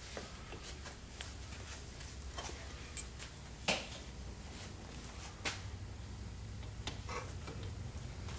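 Light clicks and knocks of aluminium Yamaha Blaster crankcase halves being handled and pushed together by hand over the crankshaft, with the sharpest knock a little past the middle. A low steady hum runs underneath.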